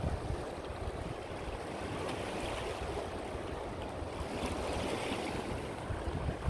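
Steady rushing of river rapids, with wind buffeting the microphone.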